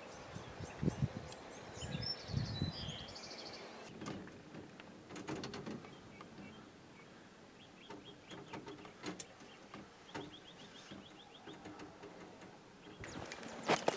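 Small birds chirping and calling, with a short trill about ten seconds in. A few soft, low thumps and rustles come in the first few seconds.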